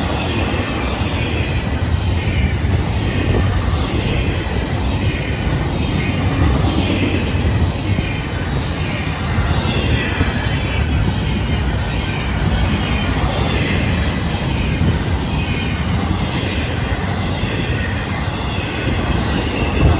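Florida East Coast intermodal freight cars rolling past at close range: a steady rumble and clatter of steel wheels on rail, with faint high wheel squeals coming and going.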